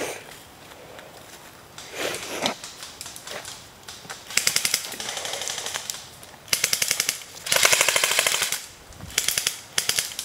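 Airsoft guns firing on full auto: several bursts of rapid pops starting about four seconds in, the longest and loudest a little after the middle, with a short last burst near the end.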